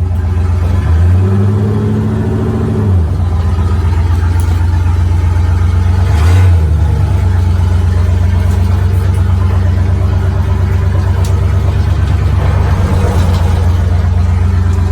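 Chevy 350 small-block V8 of an old pickup running, blipped up in revs about a second in and briefly again around six seconds, then settling back to a steady idle.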